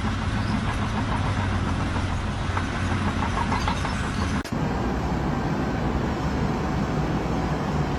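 An engine or heavy machine running steadily, with a sudden break about four and a half seconds in where one steady running noise gives way to another.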